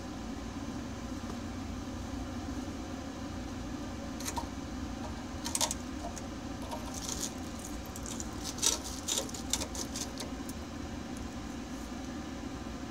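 Sharp metallic clinks and scrapes, a scattered run of them in the middle, as a screwdriver pries a plasma-cut bung disc out of a rusty steel tank wall. A steady low machine hum runs underneath.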